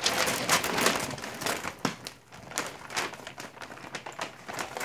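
A sheet of wrapping paper rustling and crinkling in irregular bursts as a dog noses and steps about on it and it is lifted around her, with a brief lull about two seconds in.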